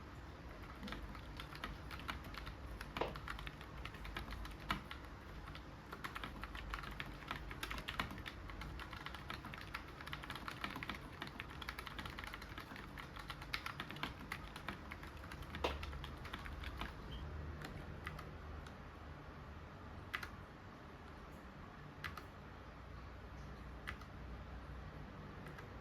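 Typing on a XINMENG C68 low-profile mechanical keyboard with brown switches: a quick, continuous run of key clicks. After about 17 seconds the typing stops, leaving only single key presses every couple of seconds.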